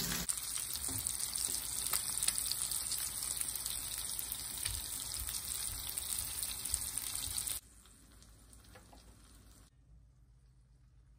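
Eggs and sliced vegetables frying in olive oil in a pan: a steady sizzle with fine crackles that cuts off suddenly about two-thirds of the way in, leaving a much quieter background.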